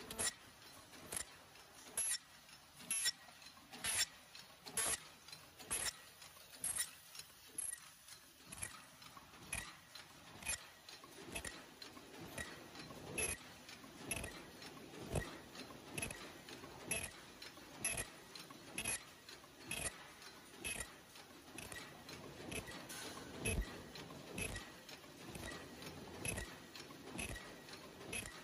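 Paper cup forming machine running, its indexing turret and forming stations knocking in a steady rhythm about once a second, with lighter mechanical ticks between the knocks.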